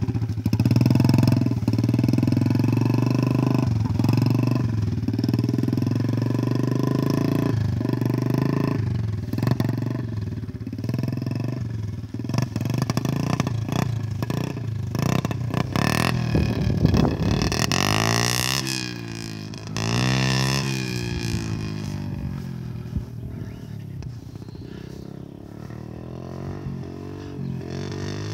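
Small dirt bike engine running, with rises and falls in pitch as the throttle is worked; it grows quieter in the second half and louder again near the end.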